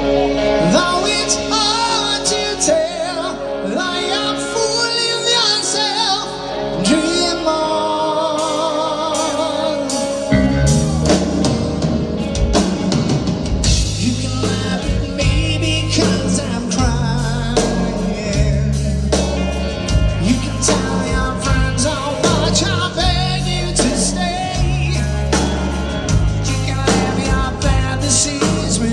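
Rock band playing live with a male lead singer: sung lines with wavering vibrato over held chords, then bass and drums come in about ten seconds in and the band plays on at full weight.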